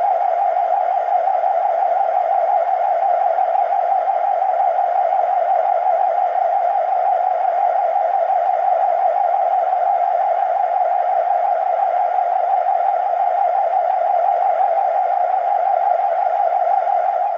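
Synthesized UFO spaceship sound effect: a steady electronic hum held on one mid pitch, with a rough, wavering texture and fainter higher overtones, unchanging throughout.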